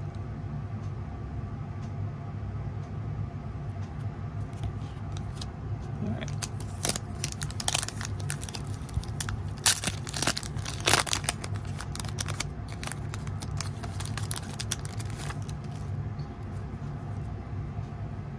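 Foil wrapper of an Upper Deck Artifacts hockey card pack being torn open and crinkled by hand: a run of sharp rips and crackles from about six seconds in until about fifteen seconds, loudest around ten to eleven seconds. A steady low hum runs underneath.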